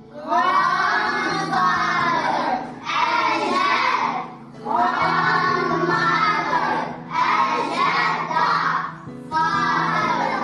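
A class of children singing together in unison. They sing in phrases of about two seconds with short breaks between them, over a steady low tone.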